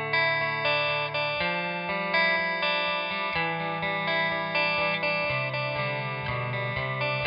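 Clean electric guitar, a PRS Silver Sky, playing chords through an RFO Electronics Waterfall uni-vibe pedal: each chord rings on with a regular, pulsing waver from the vibe effect.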